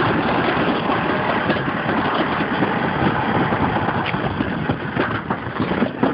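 Summer toboggan sled rumbling steadily down a stainless steel trough at speed. About four seconds in the rumble turns uneven, with knocks and clacks as the sled slows into the bottom station.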